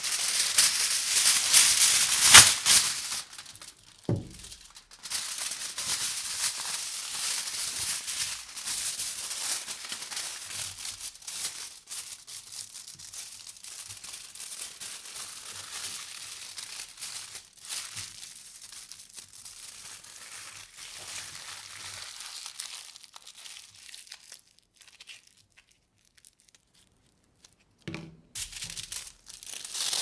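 Aluminium foil crinkling and crackling as it is handled. It is loud for the first few seconds, with a dull knock about four seconds in, then a long crackle that slowly fades. After a few seconds of near silence, another knock comes and the crinkling starts again near the end.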